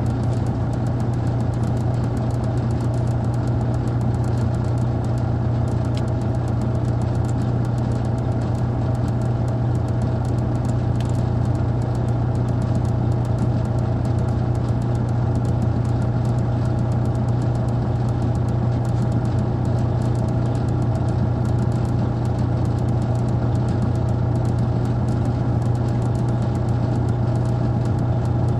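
Detroit Diesel Series 60 diesel engine of a 2002 MCI D4500 coach bus running steadily at an even speed, heard from aboard the bus, with no revving or jake brake in this stretch.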